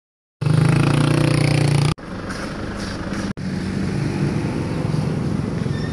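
A motor vehicle's engine running steadily, starting abruptly after silence and broken by two sudden cuts.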